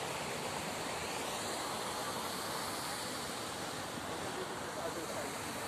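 Steady, even rushing hiss of outdoor ambience, with no distinct events.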